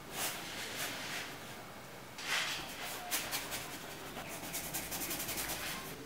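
Paintbrush bristles swishing and scrubbing across canvas: a few separate strokes, the loudest a little over two seconds in, then a quick run of short scrubbing strokes near the end.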